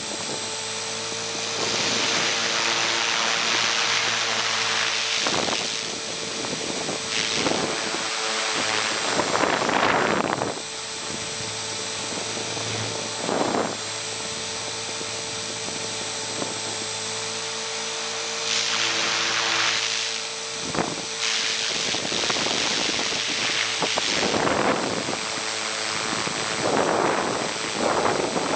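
Align T-Rex 450 Sport electric RC helicopter in flight, heard from the camera it carries: a steady high motor whine and rotor hum, with a rushing noise that swells and fades several times.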